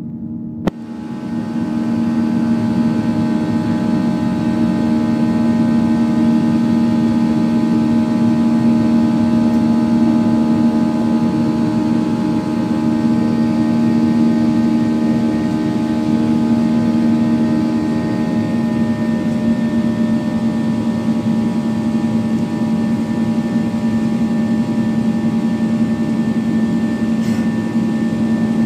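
Cabin noise of a Boeing 737-800 climbing after takeoff: its CFM56-7B jet engines drone steadily with a low hum and several steady tones. There is a sharp click near the start, after which the noise swells to full level.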